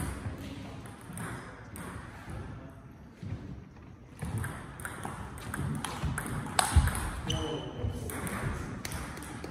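A table tennis rally: the celluloid-type ball clicks off rubber-faced bats and the table top in a quick back-and-forth. A louder thump comes about two-thirds of the way through.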